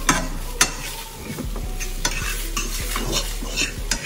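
A utensil scraping and stirring scrambled eggs around a hot frying pan, with a steady sizzle of cooking eggs. A couple of sharp clicks of the utensil against the pan come near the start.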